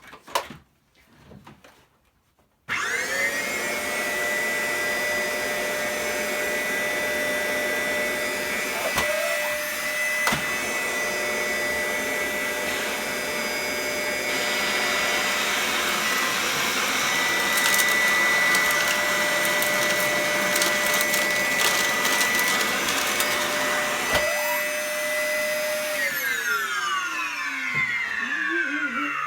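A vacuum cleaner is switched on about three seconds in and spins up to a steady whine over a loud rush of suction, with scattered clicks and rattles of debris being picked up. About three seconds before the end it is switched off, and the whine falls away as the motor runs down.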